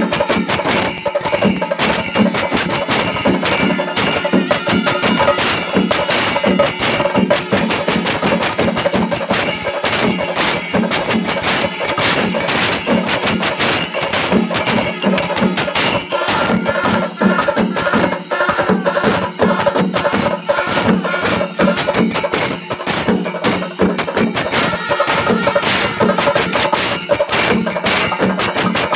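Kerala chenda melam temple ensemble playing: a dense, steady rhythm of chenda drums and ilathalam hand cymbals, with kuzhal reed pipes and kombu horns sounding over it. The reed melody stands out more in the second half.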